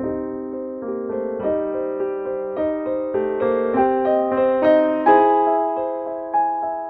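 Background music: a gentle melody played on an electric piano, one note after another, with each note struck and fading.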